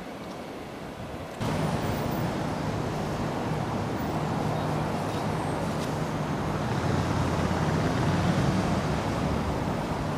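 Steady city traffic noise mixed with wind on the microphone, with a low steady hum; it jumps abruptly louder about a second and a half in and then holds steady.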